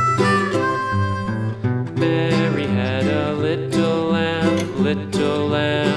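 Instrumental country-style backing music: a harmonica melody in the first second or so, then a picked acoustic guitar with a bass line.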